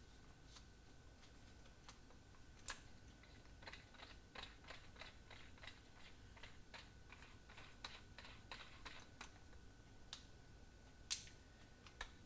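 Faint clicks and small scrapes of a screwdriver working at the retaining screw inside a cordless hammer drill's chuck, with a sharper click about three seconds in and another near the end.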